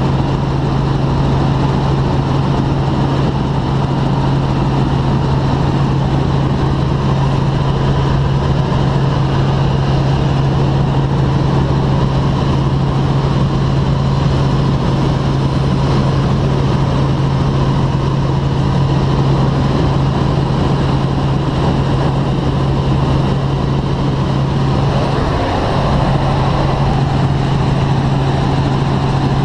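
Helicopter in flight heard from inside the cabin: a steady low engine-and-rotor hum over a constant rush of noise, the hum wavering briefly near the end.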